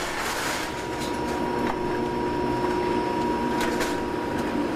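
Can-crushing and compacting machine running steadily with a constant whine, with a couple of short clanks.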